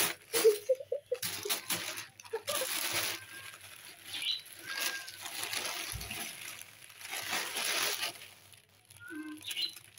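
Black plastic bag crinkling and rustling in irregular bursts as kittens shift inside it and a hand handles it.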